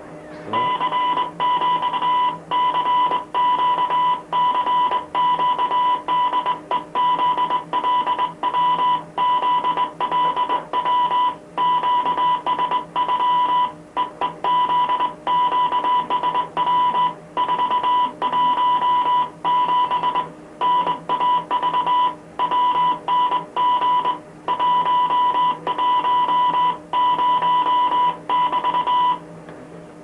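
Morse code tone: a steady high beep keyed on and off in long and short stretches with brief gaps, sent by hand on a Morse key. It starts about half a second in and stops about a second before the end, over a faint steady low hum.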